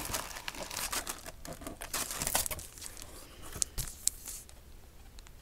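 Packaging rustling and crinkling as items are handled and pulled from a box, with a couple of sharp ticks about three and a half to four seconds in before it quiets down.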